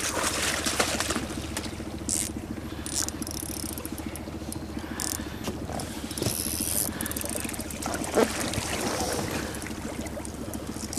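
Spinning reel winding and water splashing as a hooked fish is played up to the side of an inflatable boat, over a steady low hum.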